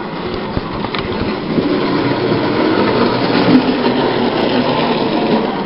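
Electric toy train running on three-rail tinplate track: a steady whirring motor and rattling wheels over the metal rails, with a low hum underneath. It grows louder over the first couple of seconds.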